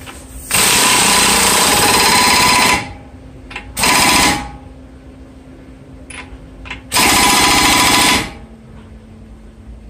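Impact wrench hammering in three bursts, a long one of about two seconds, a short one, then one of just over a second, tightening the front axle nut on the hub.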